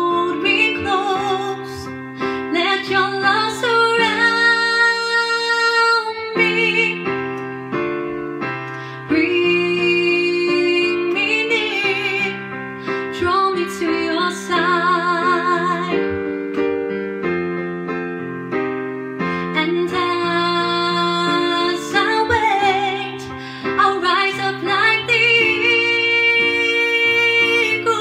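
A woman singing a slow praise-and-worship song while accompanying herself on a Yamaha digital piano. Her voice holds long notes with vibrato over sustained keyboard chords.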